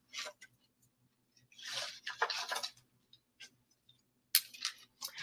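Quiet video-call audio: a faint steady electrical hum, a soft breathy noise about two seconds in, and a few faint clicks near the start and end.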